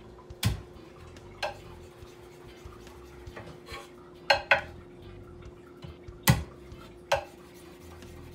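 Chef's knife knocking on a wooden cutting board as peeled garlic cloves are smashed and chopped: about six separate knocks, two of them deeper thumps, with a quick pair about halfway through.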